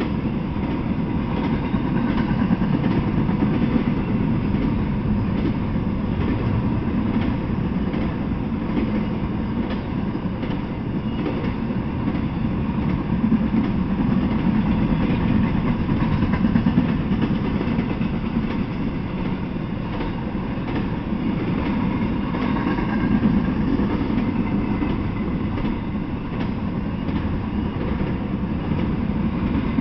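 Intermodal freight train of trailer-laden flatcars rolling past: a steady rumble of steel wheels on rail with faint clicking as the wheels cross rail joints.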